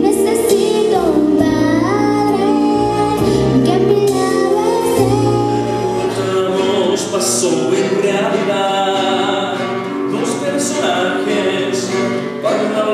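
A girl singing a Christian song into a microphone over musical accompaniment.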